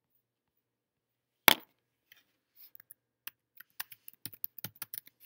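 A sharp click about a second and a half in, then an irregular run of lighter clicks and taps that speeds up to about five a second near the end.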